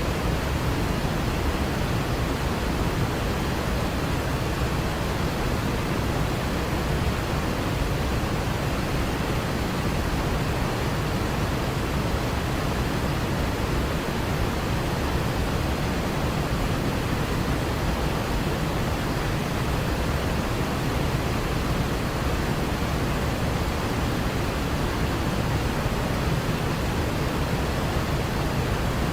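Waterfall: a steady, unbroken rush of falling water, deepest in the low range.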